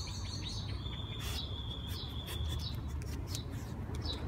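Birds calling: a thin, high note held steady for about two seconds, with short high chirps around it, over a steady low rumble and a few light clicks.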